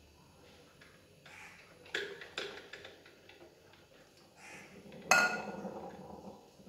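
Glass carafe of a drip coffee maker being pulled out and handled: a few light knocks, then about five seconds in a louder glass clink with a short ring as it bumps the machine.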